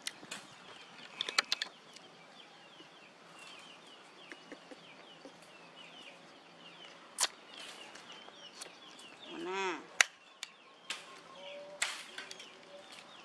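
Sharp snips of a hand nail clipper cutting a baby monkey's nails: a quick cluster of three about a second in, then single clicks spread out, the loudest near the ten-second mark. A baby monkey gives a brief squealing cry a little before that.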